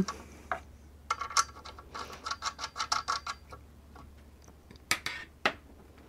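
A quick run of light clicks and scrapes, then two sharper clicks about five seconds in, as battery cables are unfastened from the inverter's input terminals and handled. A faint steady low hum runs underneath.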